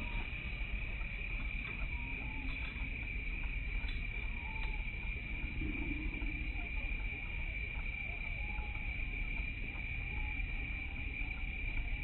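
A steady, unbroken insect drone in one high pitch, over a low rumble of wind and handling on the microphone, with a few faint short calls now and then.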